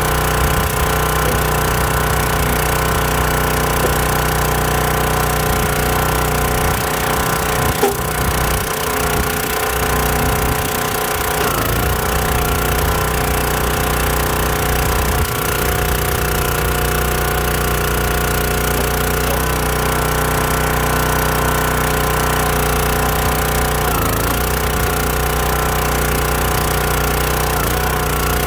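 Small gas engine of a Countyline 25-ton hydraulic log splitter running steadily, its pitch wavering briefly a few times as the splitter works through the wood.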